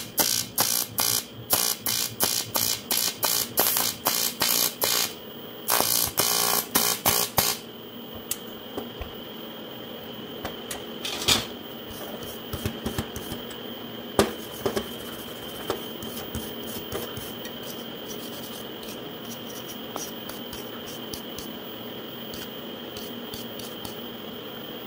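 AC TIG arc on cast aluminum buzzing in rapid pulses, about three a second, with a short break near the five-second mark; the arc stops about eight seconds in. A brush then scrubs the weld with light scratching strokes and two sharp knocks, over a steady high whine.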